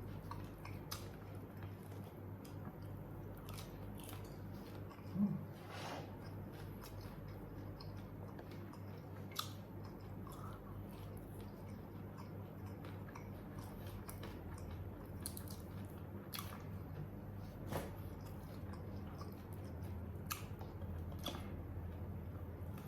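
A person chewing and biting into ayam geprek, smashed spicy fried chicken, with scattered small crunches and mouth clicks over a steady low hum.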